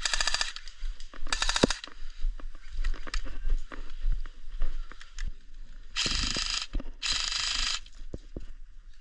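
Hook-and-loop (Velcro) straps on a plate carrier being torn open in four short rasping rips: two near the start and two longer ones about six and seven seconds in, with small clicks and rustles of gear handling between them.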